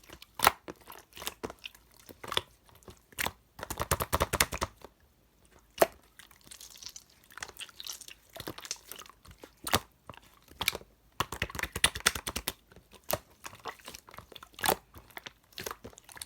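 Thick, creamy yogurt slime being pressed, folded and stretched by hand, giving sticky clicks and pops. There are two denser runs of rapid crackling clicks, about four seconds in and again around eleven to twelve seconds.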